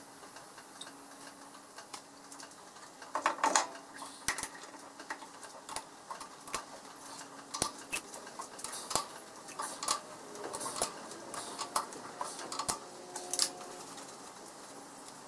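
Scattered metal clinks and knocks of a four-jaw lathe chuck being handled and fitted onto the lathe spindle nose, sped up four times so the sounds come quick and high. The loudest cluster of knocks comes about three seconds in.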